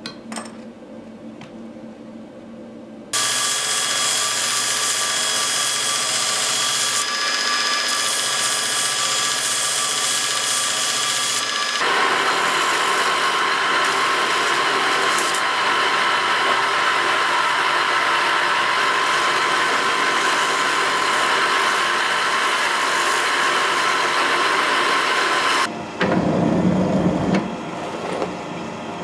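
An electric power tool starts abruptly a few seconds in and runs steadily for about twenty-two seconds, a high hiss with several whining tones that shifts twice, then stops, leaving irregular handling noise.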